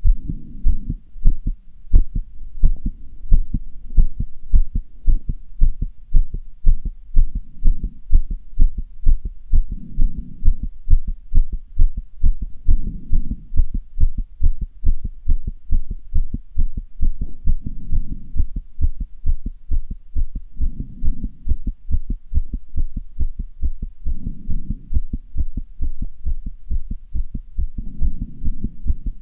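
A human heartbeat heard close up, beating fast: quick, even low thumps as the heart valves snap open and shut. A softer swell of noise rises and fades every few seconds.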